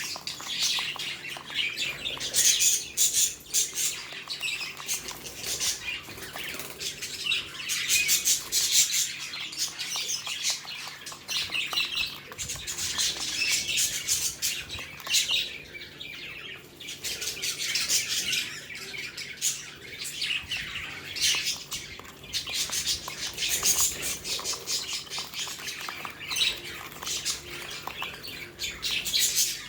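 Pet budgerigars chattering and chirping, many quick high calls overlapping without a break.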